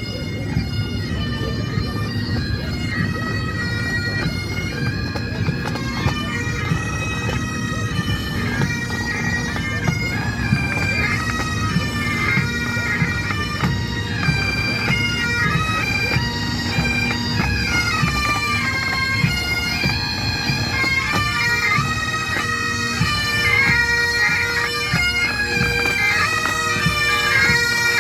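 Pipe band's Great Highland bagpipes playing a tune, the melody stepping over a steady, unbroken drone.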